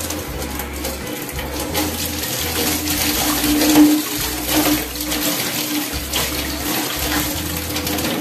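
Tap water running steadily into a stainless steel sink, splashing over an electric shaver's detached head and body as they are rinsed under the stream.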